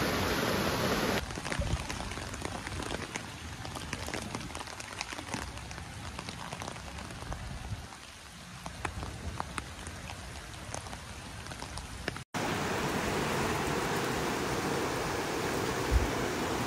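Rain falling on a flooded street, with scattered close raindrop ticks. About twelve seconds in it cuts to a louder, steady rush of water, with a single thump near the end.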